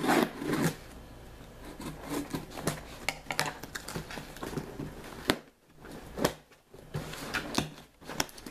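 A shipping package being opened by hand: rustling and scraping of the packaging, with several sharp clicks and snaps scattered through.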